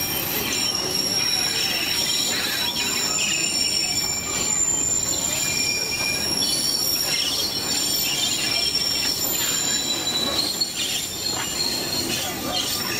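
Narrow-gauge scenic railway train running, heard from aboard: a steady rumble of wheels on the track with thin, high-pitched wheel squeals that come and go.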